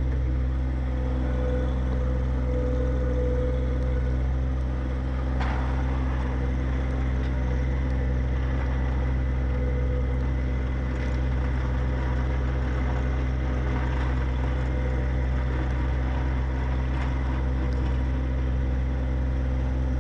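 John Deere 1025R subcompact tractor's three-cylinder diesel engine running steadily at a constant speed, with a brief knock about five seconds in.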